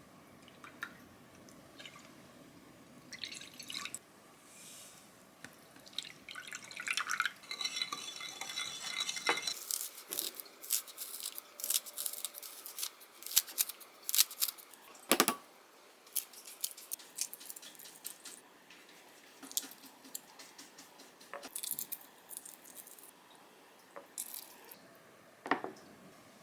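Kitchen handling sounds: a short watery trickle or pour, then a run of sharp clicks and taps of dishes and utensils.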